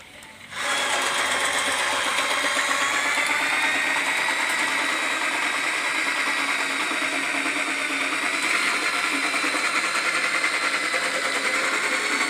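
Motor-driven drain-cleaning machine running steadily to clear a clogged kitchen sink drain, with a high whine; it starts about half a second in.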